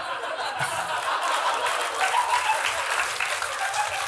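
Studio audience applauding steadily, with some laughter mixed in.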